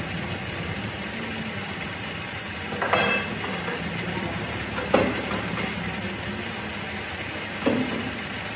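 Metalworking machine running with a steady hum, broken by a sharp clank about every two to three seconds, three in all.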